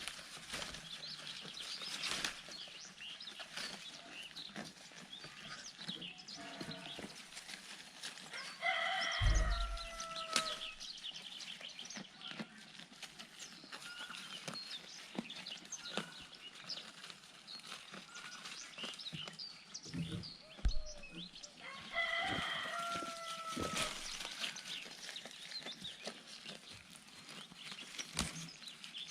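A rooster crowing twice, each crow about two seconds long, the second about thirteen seconds after the first. Faint short clicks and rustles run in between.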